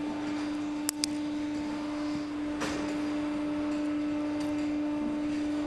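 A steady humming tone runs throughout. Over it come two quick clicks about a second in, then fainter handling, as pellets are pressed into an air rifle's ten-shot rotary magazine and the magazine is fitted back into the rifle.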